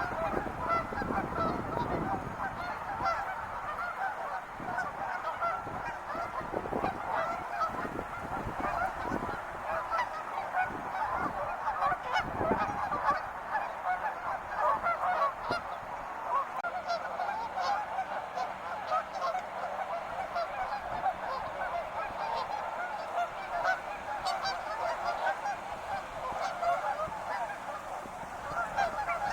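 A large flock of wild geese honking continuously, many calls overlapping into a dense chorus.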